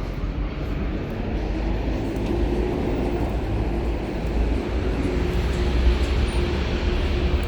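City street traffic with a large vehicle running close by: a steady low rumble and a steady hum, a little louder after the first couple of seconds.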